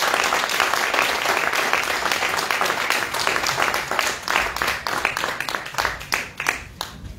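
Audience applauding, a dense spread of clapping that thins out to a few scattered claps near the end.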